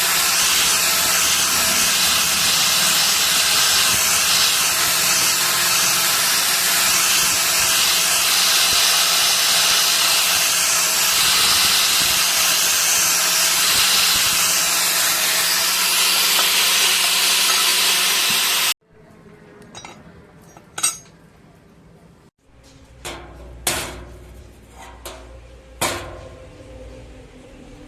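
A loud, steady hiss that stops abruptly about two-thirds of the way through. After it come a handful of sharp metal taps and clinks, irregularly spaced, of hand tools on sheet metal.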